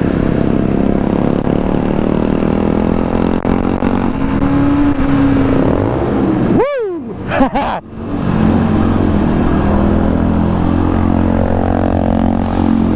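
Aprilia Tuono 125's single-cylinder four-stroke engine running steadily as the motorcycle is ridden, with a brief break and swing in pitch about seven seconds in before it settles again.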